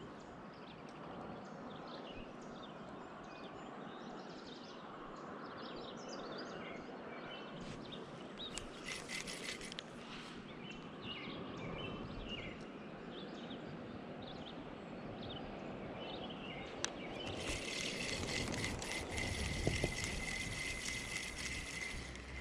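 Quiet riverside ambience with small birds chirping. In the last few seconds a steady rattling buzz comes in.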